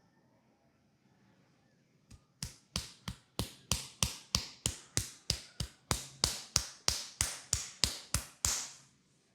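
Hands striking in a quick, even rhythm of massage tapotement: about twenty sharp slaps, about three a second, starting about two seconds in and stopping shortly before the end.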